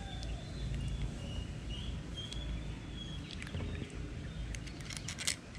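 Light clicks from a spinning reel's body and rotor being handled and turned in the hand, over a steady background hiss, with faint short bird chirps.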